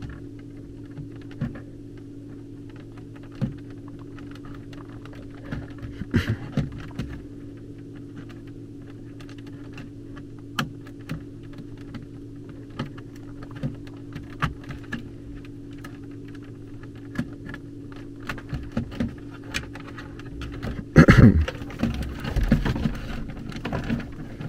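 Scattered small clicks and taps of hands working thermostat wires into the screw terminals of a zone control board, over a steady low hum. About 21 seconds in there is a louder stretch of rustling and handling as the wires are pulled.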